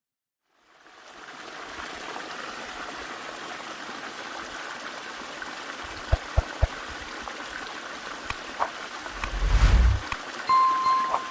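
Flowing stream water fading in from silence to a steady rush. A few dull knocks come about two-thirds of the way through, then a brief low rumble and a short, steady high tone near the end.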